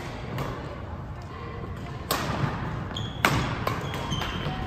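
Badminton rally: a shuttlecock struck back and forth by rackets, several sharp cracks with the loudest a little after three seconds in, with short squeaks of court shoes on the floor, in an echoing sports hall.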